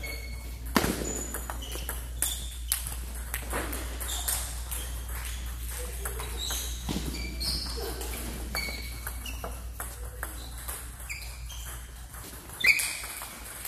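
Table tennis rally: a plastic ball clicking off the paddles and pinging on the tabletop in quick, irregular succession, with a louder hit near the end.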